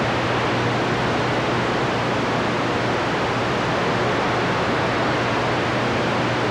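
Steady hiss of static from a radio receiver's speaker, with no station coming through, and a low steady hum underneath.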